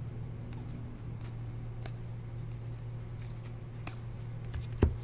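Topps Chrome baseball cards being flicked and slid past one another in the hands: a scattered string of light clicks and snaps over a steady low hum, with one louder knock near the end.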